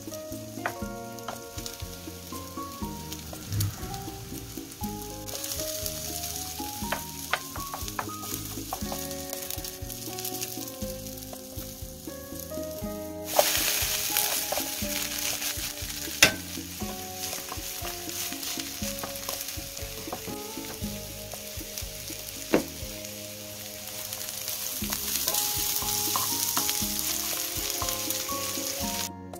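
Cabbage, carrot and egg patty sizzling as it fries in margarine in a nonstick pan, with a few wooden spoon scrapes and sharp taps. The sizzle grows much louder about halfway through, as more margarine goes in and the patty is turned to brown its other side.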